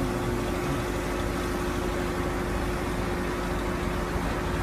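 Heavy truck's diesel engine running steadily under load as it tows a large storage tank on a trailer, a steady drone with one held tone.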